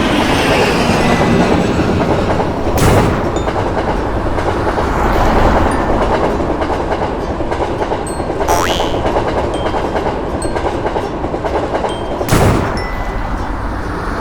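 A train passing with its wheels clattering over the rails in a steady, dense rumble. Three sharp loud bangs cut through it, about three, eight and twelve seconds in.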